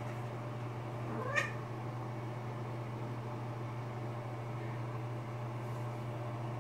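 Domestic cat giving a single short meow that rises quickly in pitch, about a second and a half in, over a steady low hum.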